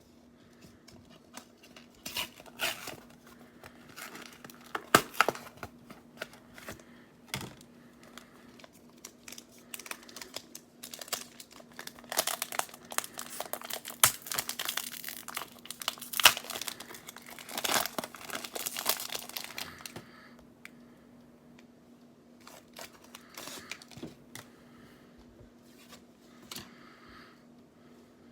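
Foil booster pack wrapper crinkling and tearing as it is opened, a dense crackle that is loudest in the middle, then dies down to sparse faint rustles for the last several seconds.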